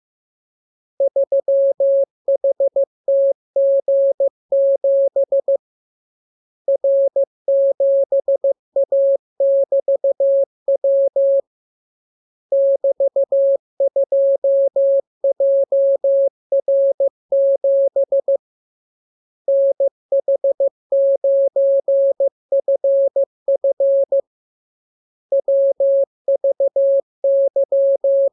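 Morse code (CW) sent as a single steady tone keyed into short dots and longer dashes. It comes in runs of characters, each a few seconds long, with a pause of about a second between runs.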